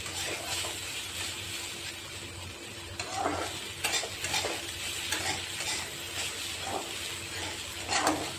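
Poha (flattened rice) being stirred and tossed with a spatula in a black kadhai, with irregular scraping strokes against the pan over a light, steady sizzle. The sharpest scrape comes near the end.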